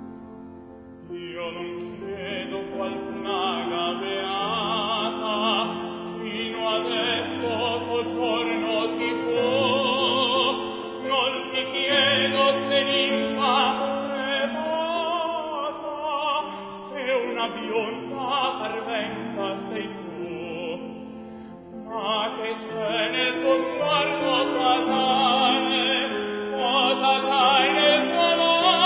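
Tenor singing an Italian art song with strong vibrato over piano accompaniment. The voice enters about a second in and breaks off briefly about three-quarters of the way through before carrying on.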